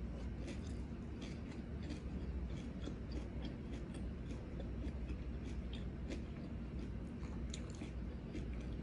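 Close-up chewing of raw leafy ulam greens: a quick, irregular run of small crisp crunches and clicks from the mouth.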